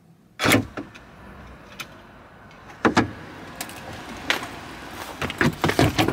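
A car door opens with a loud clunk about half a second in, followed by scattered clicks and knocks that come more often near the end as someone climbs into the car.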